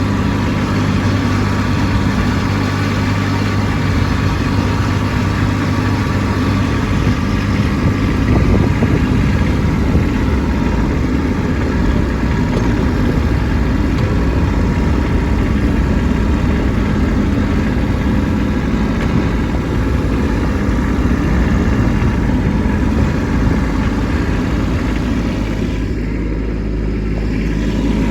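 Kubota B2601 compact tractor's three-cylinder diesel engine running steadily while working snow, easing off slightly near the end.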